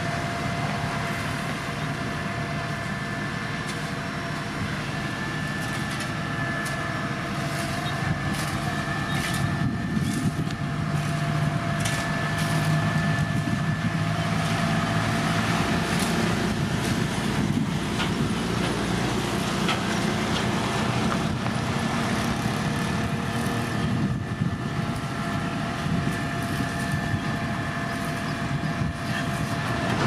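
Heavy road-construction machinery engines running steadily, with a thin steady whine and scattered knocks and rattles, getting a little louder several seconds in.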